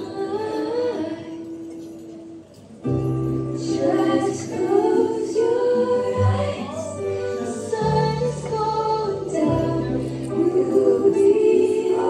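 A song with a female voice singing over instrumental accompaniment. After a held note fades, a low bass line and fuller backing come in about three seconds in, then run on.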